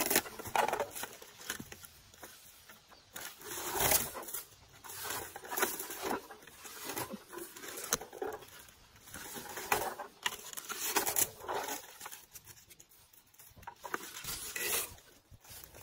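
Handheld plastic berry picker combing through low blueberry bushes: irregular rustling, scraping sweeps through leaves and twigs, one every second or two.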